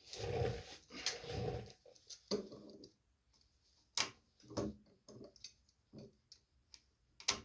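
Two short vocal sounds in the first two seconds, then scattered clicks and light knocks of hands working a rubber fuel line and hose clamp onto a small-engine carburetor, with the sharpest click about four seconds in.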